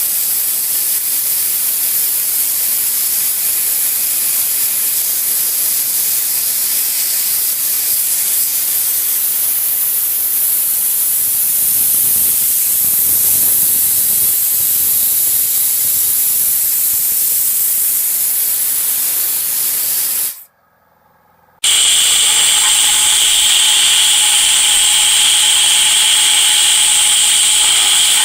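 Loud, steady hiss of a compressed-air jet working on a cracked cast-iron engine block. About twenty seconds in it cuts off abruptly, and after a second's pause a steady power-tool noise with a fixed high whine takes over.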